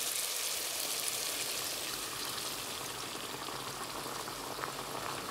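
Water poured into a hot pot of browned meat, tomatoes and spices, hissing and bubbling steadily as it hits the hot pot.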